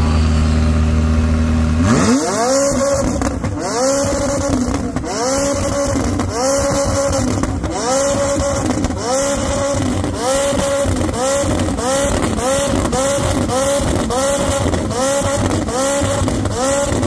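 A vehicle engine revved over and over in quick rhythmic blips, each rising and dropping back, after a steady low hum for the first two seconds. The blips come slightly faster towards the end.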